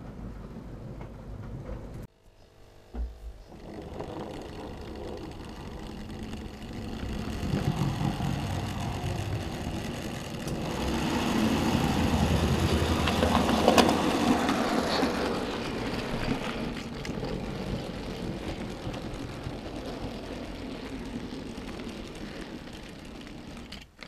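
Model railway train running along the layout, its running noise building a few seconds in, loudest near the middle, then slowly fading as it draws away. Before that, a steady low hum cuts off suddenly about two seconds in.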